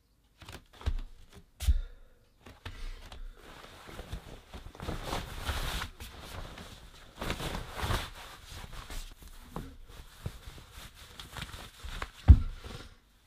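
Clothing rustling and bare feet shuffling and thudding on a wooden floor while someone gets dressed, pulling on trousers and socks. There are several thumps, the loudest near the end.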